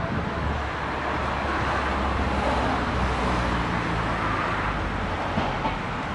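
Steady rumble of road traffic, with a low engine drone that eases after about three seconds.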